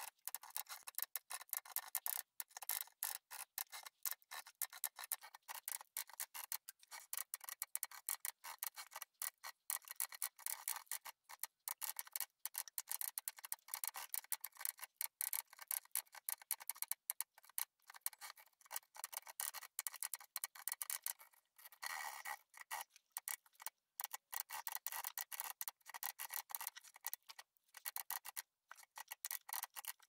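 1928 Olivetti M20 typewriter typing: a rapid, dense clatter of typebar strikes, many a second, broken by brief pauses now and then.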